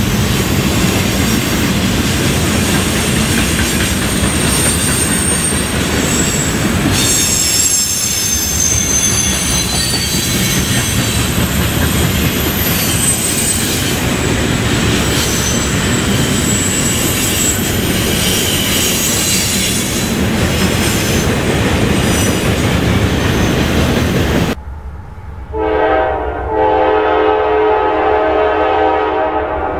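Freight train passing close by: a steady rumble of wheels on rail with high wheel squeal. About 25 seconds in, after a short drop, a CSX diesel locomotive's multi-tone horn sounds and holds to the end.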